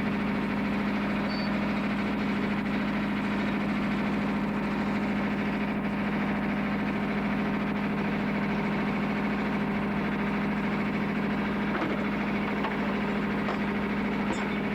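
Boat engine running steadily with an even hum.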